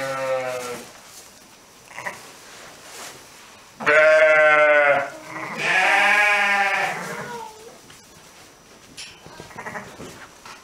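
Adult sheep bleating three times in low, drawn-out calls: one at the start, a loud one about four seconds in, and a wavering one right after it.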